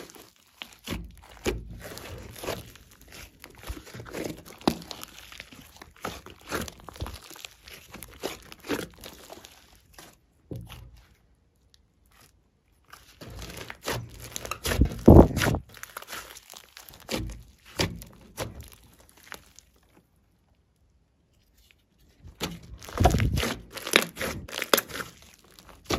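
Hands squeezing, folding and stretching a big mass of glossy slime mixed with clay and glitter, making irregular sticky crackles and pops of trapped air. There are two short silent pauses, and the loudest bursts come near the middle and near the end.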